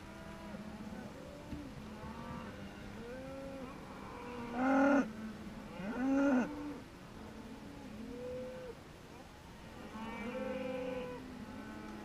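A herd of beef cows and calves mooing, many calls overlapping throughout, with two loud bellows close by a little before the middle.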